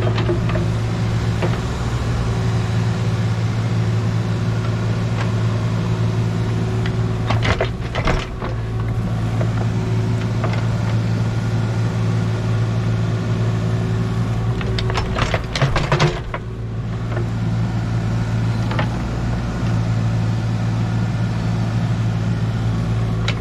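Engine of a compact earthmoving machine running steadily while backfilling a tank excavation, with clusters of sharp clanks and knocks about 7 seconds in and again about 15 seconds in.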